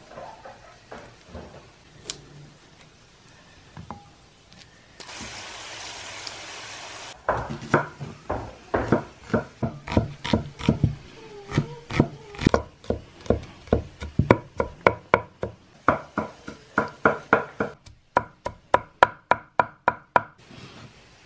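Cleaver chopping onions on a wooden cutting board: sharp repeated knocks of the blade on the board, about three a second, quickening near the end. The first seven seconds hold only faint handling sounds and a hiss of about two seconds.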